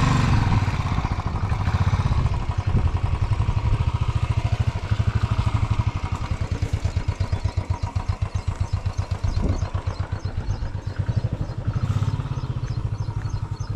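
Royal Enfield Classic 350's single-cylinder engine running at low revs as the bike is ridden slowly through deep mud, with a steady beat of firing pulses. The revs rise and fall, easing off in the middle and picking up again near the end.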